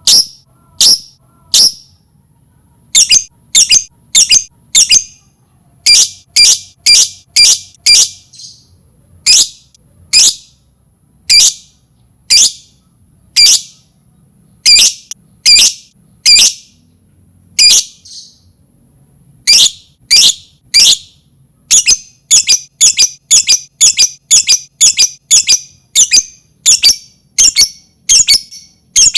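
Lovebird calling: a long series of short, shrill, squawking chirps, some single and some in quick runs of three to five. They get faster near the end to about two a second. It is a pancingan lure call, played to set other lovebirds calling.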